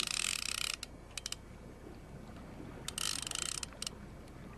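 Fishing reel ratcheting in two bursts of rapid fine clicks, one at the start and another about three seconds in.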